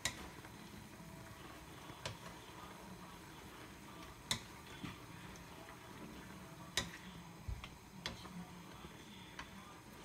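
Wooden spatula stirring food in a nonstick frying pan, with irregular sharp taps against the pan every second or so over a faint steady hiss.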